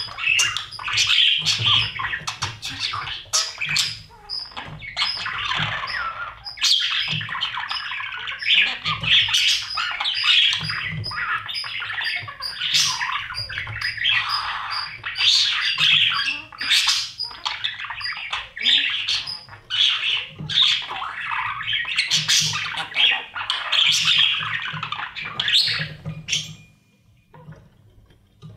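Budgies chirping and squawking continuously inside a nest box, a dense run of short calls that stops suddenly near the end.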